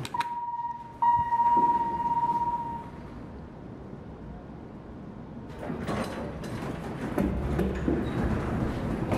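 Two electronic beeps at one pitch from the Dover Impulse freight elevator's button panel, a short one as a button is pressed, then a longer one of about two seconds. From about five and a half seconds in, the elevator's sliding doors move with a low rumble and knocks.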